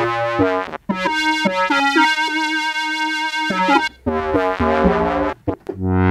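Arturia SynthX V, a software emulation of the 1980s Elka Synthex analog synthesizer, playing a lead preset. It plays a short phrase of sustained synth notes with brief gaps between them, and one note is held for about a second and a half partway through.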